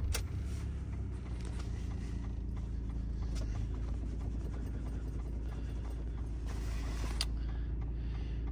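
Ford Transit van's diesel engine catching on start and then idling steadily, heard from inside the cab, with a few light clicks; the engine has been warmed by a coolant preheater at −11 °C.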